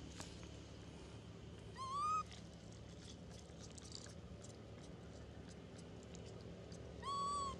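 Long-tailed macaque coo calls: two short high calls about five seconds apart, each rising and then levelling off.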